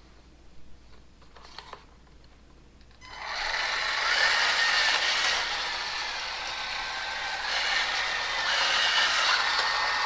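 Heng Long 1/16 Walker Bulldog RC tank running on a floor, starting about three seconds in: its small electric motors whine through the freshly fitted replacement gearboxes and the tracks rattle, and the whine rises and falls a little in pitch. The gearboxes are running properly. A couple of light clicks come just before it starts.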